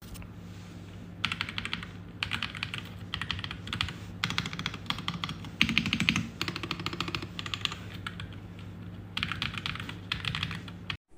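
Mechanical keyboard fitted with Akko V3 switches being typed on, in quick bursts of keystrokes with short pauses between.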